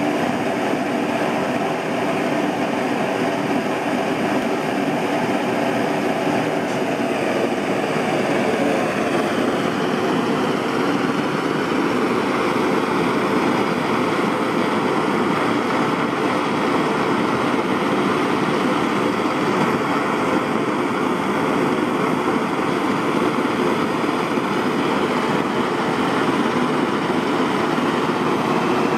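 Three Primus model 632 pressure blowlamps burning together at full flame: a steady, even rushing of the burners.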